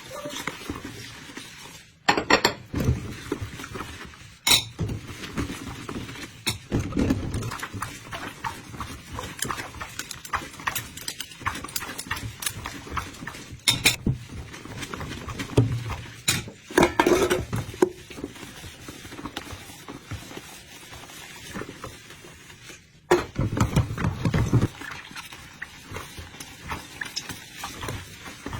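Kitchen sounds: dishes and utensils knocking and clinking now and then, with spells of low bubbling and gurgling between them.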